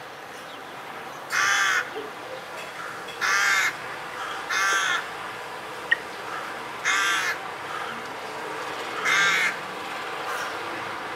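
Crows cawing: five harsh, short caws spaced about one and a half to two and a half seconds apart, over steady background noise.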